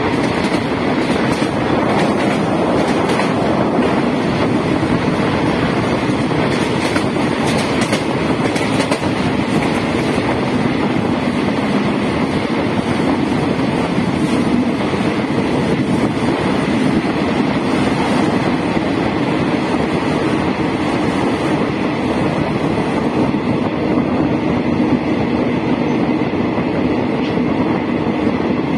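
Express passenger train running at speed, heard from an open window of a coach: a steady rumble of wheels on rails mixed with rushing air.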